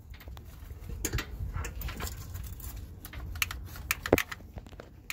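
Irregular metallic clicks and knocks as a power steering pump on a DD15 diesel engine is worked loose by hand and pulled from its mount, with a sharper knock about four seconds in.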